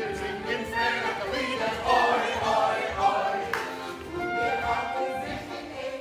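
Music: singing voices over instruments, continuing without a break.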